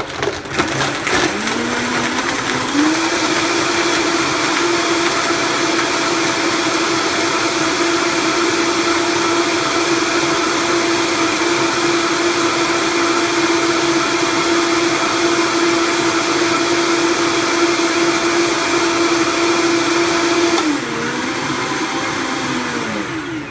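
Standard Vitamix variable-speed blender blending a shake with ice cubes and spinach. The motor winds up to high speed over the first few seconds, runs steadily and loudly at high speed, then winds back down near the end as the speed is turned down.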